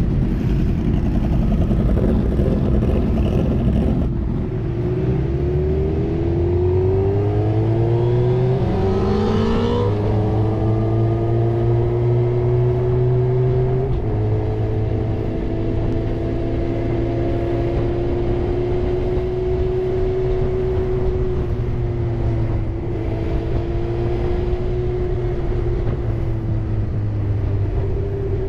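Several motorcycle engines idling and revving together. After a cut, a Suzuki GSX-R750's inline-four engine pulls up through the revs for about five seconds, then settles into a steady cruise, with a brief dip in pitch twice.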